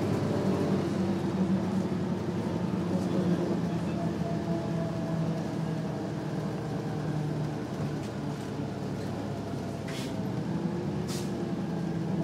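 Engine and drivetrain of an MCI/Novabus Classic transit bus heard from inside the cabin while it drives. The engine note eases off in pitch and loudness through the middle and picks up again near the end. A couple of sharp clicks or rattles come near the end.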